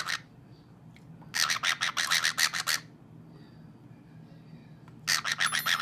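Two bursts of rapid, raspy scratching, each lasting a little over a second: one about a second and a half in, the other near the end.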